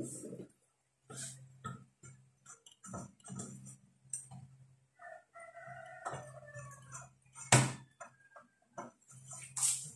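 Scattered clicks and knocks of hand tools being picked up and a screwdriver worked against a metal amplifier chassis, with one sharper knock about seven and a half seconds in. A rooster crows in the background about five seconds in.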